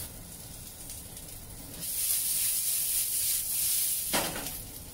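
Sliced onions sizzling in hot oil in a wok, browning towards golden; the hiss grows louder about two seconds in. A short knock sounds near the end.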